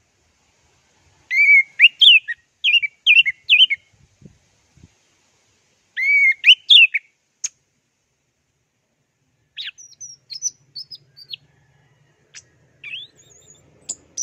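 Orange-headed thrush (anis merah) singing: two bursts of quick rising and falling notes, then sparser, softer, higher notes in the last few seconds, with silent gaps between phrases.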